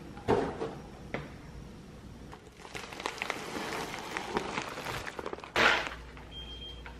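Cardboard delivery boxes and a plastic bubble-wrap bag being handled and set down: a few knocks and thumps, crinkling plastic in the middle, and a louder rustle of the bag near the end, followed by a short high beep.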